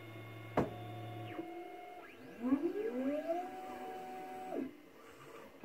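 Formlabs Form 2 resin 3D printer's stepper motors whining as the resin tank and build platform move between layers. Steady tones shift in pitch, with a sharp click about half a second in. Then a whine rises in pitch for about a second, holds, and stops shortly before the end.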